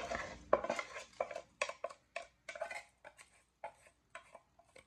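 Wooden spoon scraping and knocking washed rice out of a metal pot into a frying pan: a run of short scrapes and taps, about three a second, growing fainter.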